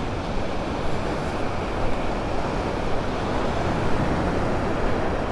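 Gulf surf breaking and washing up the beach, a steady rush of noise, with wind rumbling on the microphone.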